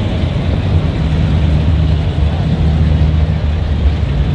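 Plymouth Superbird's V8 rumbling steadily at low speed as the car creeps past in slow traffic.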